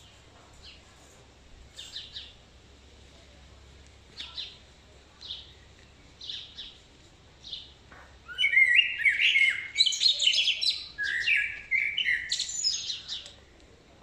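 A songbird giving short, high chirps roughly once a second, then singing a loud, rapid song of varied notes for about five seconds, starting some eight seconds in.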